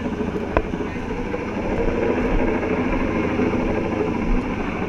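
Helicopter running overhead: a steady engine-and-rotor drone with a low, uneven rumble. A single sharp click sounds about half a second in.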